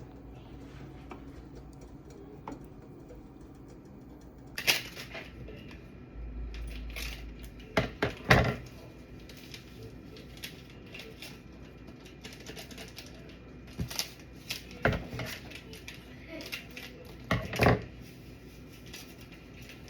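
Kitchen clatter: scattered knocks and clinks of dishes, pots and utensils, several sharp ones in quick pairs.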